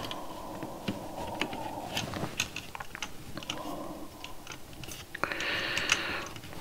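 Small irregular clicks, crackles and scrapes from handling a perforated circuit board and pushing component leads through its holes, with a short hissy rustle about five seconds in.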